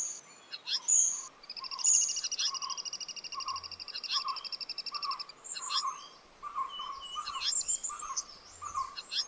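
Several birds calling: a long, rapid trill lasting about three and a half seconds, starting a second and a half in, over a steady run of low, repeated notes about twice a second, with scattered short chirps.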